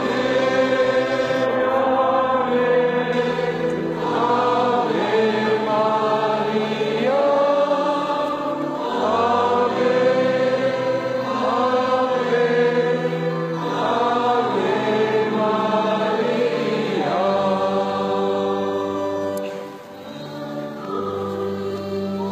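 A choir sings a slow hymn in long, drawn-out phrases over steady low accompanying notes.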